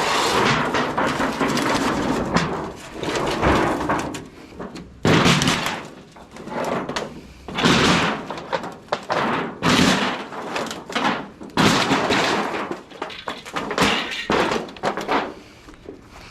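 Sheet-metal panels of an old tin shed being handled: a string of loud bangs and thumps with scraping stretches between them.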